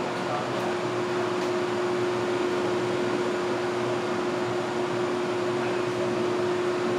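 A steady mechanical hum with one constant tone running through it.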